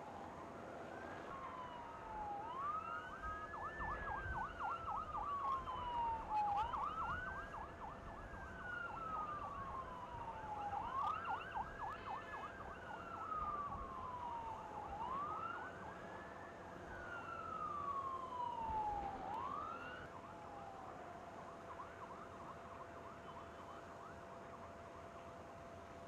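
Emergency vehicle siren wailing, each cycle rising quickly and falling slowly, repeating about every four seconds, then fading out about twenty seconds in.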